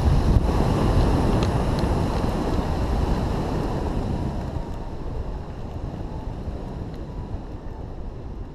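Wind rushing over the microphone of a camera mounted on a hang glider in flight, loudest at first and easing off after about four seconds.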